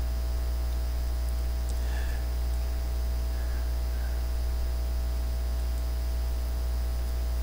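Steady low mains hum with a faint hiss, unchanging throughout.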